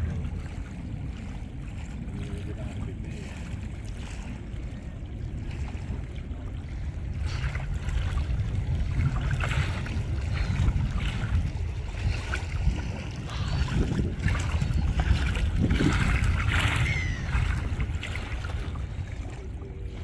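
Wind rumbling on the microphone beside open water, stronger from about eight seconds in. Faint, scattered higher-pitched sounds come and go through the middle.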